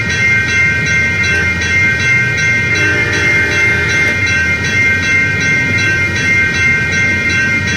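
Railroad grade-crossing bell ringing steadily, about two strikes a second, over the rumble of a passing train.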